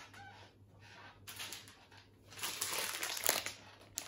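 Plastic wrapping crinkling as a packet of cheese is picked up and handled, loudest for about a second in the second half.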